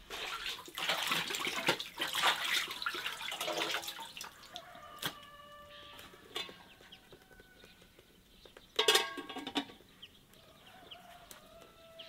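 Water splashing and sloshing in a metal basin as a raw chicken is washed for the first few seconds, then chickens calling, with a rooster crowing loudly about nine seconds in.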